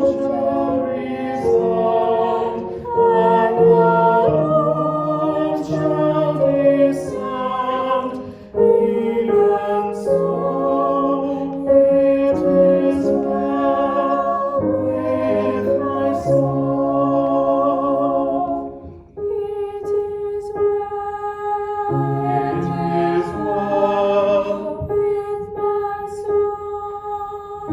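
Slow church hymn music: held chords that change every second or two, with short breaks between phrases about eight and nineteen seconds in.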